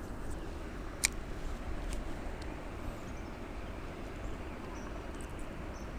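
Steady low outdoor rumble with one sharp click about a second in and a few faint high chirps near the end.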